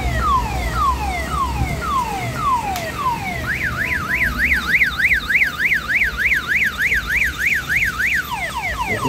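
Electronic alarm siren of the car-alarm kind cycling through its tones: a run of falling sweeps about twice a second, then a fast up-and-down warble from about three seconds in to about eight, then falling sweeps again. A steady low rumble runs underneath.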